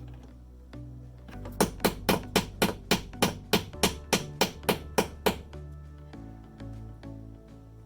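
A hammer striking about fourteen quick, even blows, roughly four a second, over background music.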